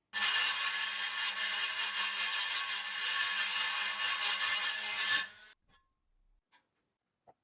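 Power tool grinding or abrading metal: a steady rasping hiss over a motor's hum, which cuts off suddenly after about five seconds.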